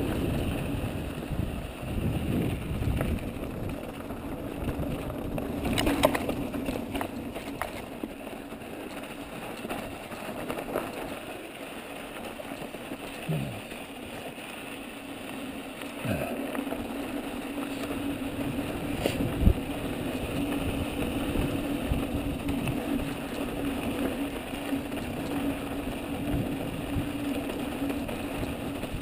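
Ibis Mojo mountain bike descending a loose dirt and gravel trail: wind rushing over the microphone with the crunch and rattle of the tyres and bike over rough ground, and a steady low hum that comes in about halfway. Scattered jolts throughout, with two sharper knocks, one about a fifth of the way in and one about two-thirds in.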